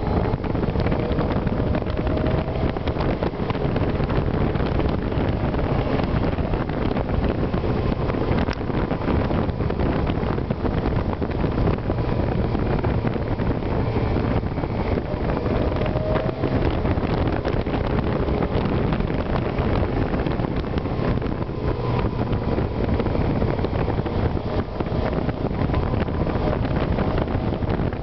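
Wind rushing over the microphone of a moving motorcycle, with the Yamaha GTS-1000's inline-four engine running steadily underneath at cruising speed.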